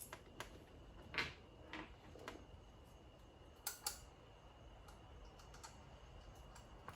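Faint, irregular clicks and taps of small mirror-mounting hardware (clip nuts, washers, bolts) being handled and fitted, the sharpest about a second in and again near the middle.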